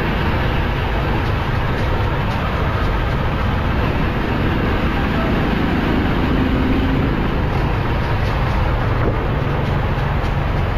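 Steady noise of a vehicle driving through town traffic: a continuous low rumble of engine, tyre and road noise with no distinct events.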